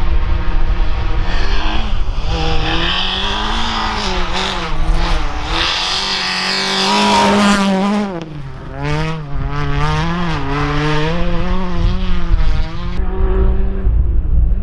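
Citroën C2 R2 Max rally car's engine revving hard as it slides past on snow, its pitch climbing and dropping with throttle and gear changes, with a sharp dip in revs about halfway through. Near the end the sound changes abruptly to a more distant engine note.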